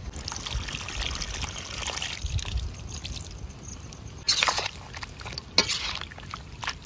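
Tamarind water being poured into the pot of pork curry, a splashing trickle that fades after the first couple of seconds. Two sharp clinks follow, about four and five and a half seconds in.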